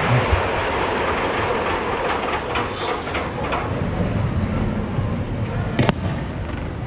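Aerial firework shells at a display: a steady rolling rumble of bursts and their echoes, with faint crackling, and one sharp report about six seconds in.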